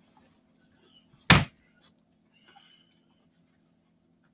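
A single sharp thump about a second in, over a faint steady low hum.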